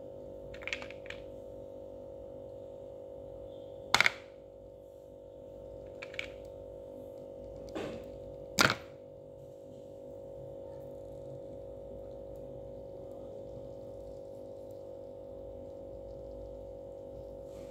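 Chunks of roasted clay snapped apart by hand: a few sharp cracks, two loud ones about four and eight and a half seconds in, with fainter ticks between, over a steady background hum.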